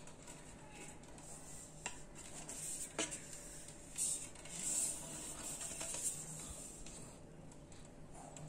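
Handling noises from a carbon-rim bicycle wheel turned close to the microphone: a few sharp clicks and a stretch of rustling hiss a little after the middle.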